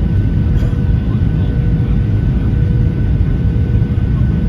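Airliner cabin noise at a window seat: a steady, loud low rumble of the jet engines and airflow, with a faint steady whine over it.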